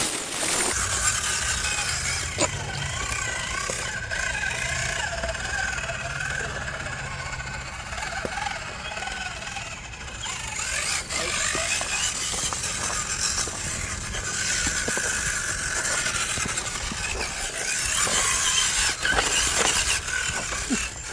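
1/10-scale RC rock crawler's electric motor and gears whining, the pitch wavering as the truck crawls and works over the obstacle.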